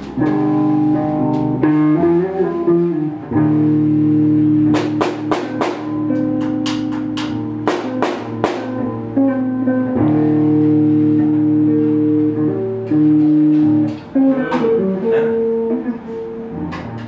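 Guitar playing long held chords and notes, with a run of sharp percussive hits in the middle and a few more near the end.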